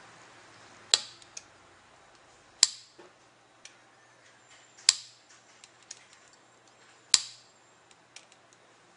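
Piezoelectric energy-harvesting switch pressed by finger: four sharp clicks about two seconds apart, each followed by a smaller click. Each press makes the pulse that powers a battery-less wireless light switch.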